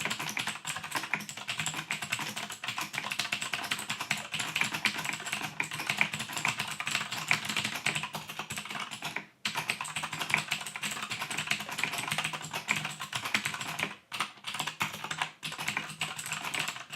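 Fast typing on the Hyper Clack Retro mechanical keyboard with blue clicky switches: a dense, continuous run of rapid key clicks, with brief pauses about nine and fourteen seconds in.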